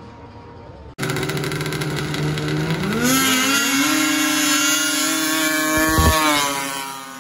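Two racing snowmobiles accelerating flat out down a snow drag strip: the engines climb steeply in pitch, hold a loud, high steady pitch at full throttle as they close in, pass close by about six seconds in with a drop in pitch, then fade away.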